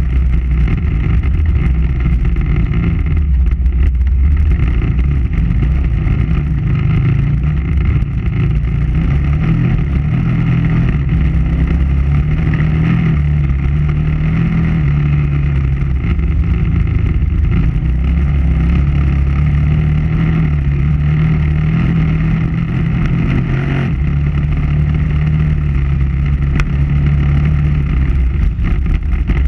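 KTM 990 Adventure R's V-twin engine running while the bike is ridden, its pitch rising and falling gently with the throttle.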